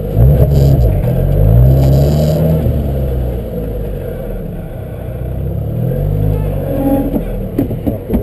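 Lotus Exige's engine heard from inside the cabin, its revs rising and falling several times as the car creeps backward at walking pace.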